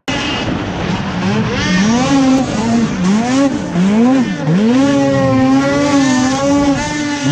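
Race snowmobile's two-stroke engine heard close up from on board, its revs rising and falling about every half second as the throttle is worked over the track, then holding higher and steadier for the last couple of seconds.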